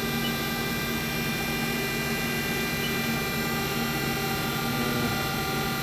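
Haas VM3 vertical machining center powered up and running: a steady whine made of many even tones that holds at one level throughout.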